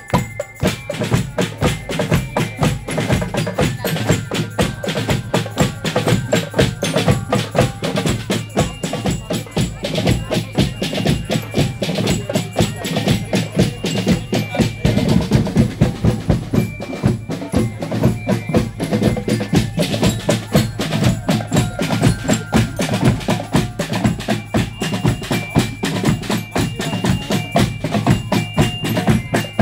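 German Spielmannszug marching band playing: snare drums and a bass drum keep a steady march beat, and bell lyres ring out the melody over them.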